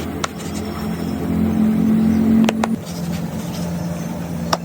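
A steady, low mechanical hum from a running motor that swells louder for about a second and a half in the middle, with a few sharp clicks.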